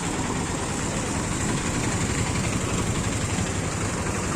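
Floodwater rushing over and past a bridge: a steady, even roar with a low rumble underneath.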